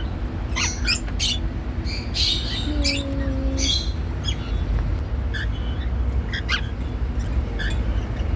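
Cockatiels giving short, sharp chirps and squawks, several in quick succession in the first four seconds, then fainter and more scattered, over a steady low background hum.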